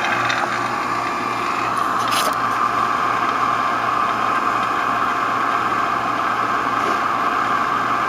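HVAC vacuum pump running steadily with an even hum and hiss as it evacuates a heat pump system. It has gone quieter, the sign that the system is being pulled down into a deep vacuum.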